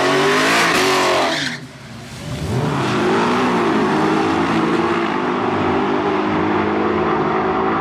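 Dodge Charger engine revving as the car rolls past, then, after a brief drop, two drag cars, the Charger and a Ford Mustang, accelerating hard down the strip at full throttle, engine pitch climbing through the gears.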